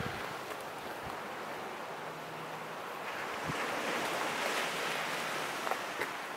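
Ocean waves washing and wind, an even wash of sea noise that swells for a couple of seconds about halfway through.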